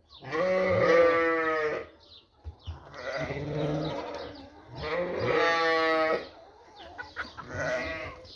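Sheep bleating again and again: two long, loud, wavering bleats, one near the start and one about five seconds in, with fainter bleats between them and near the end.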